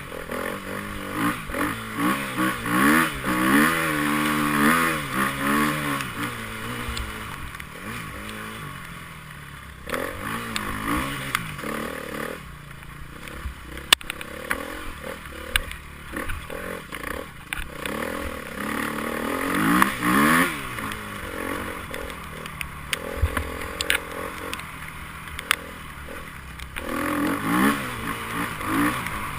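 Enduro motorcycle engine revving up and down repeatedly as it is worked hard, with loud surges near the start, in the middle and near the end. Clattering and scraping knocks run through it.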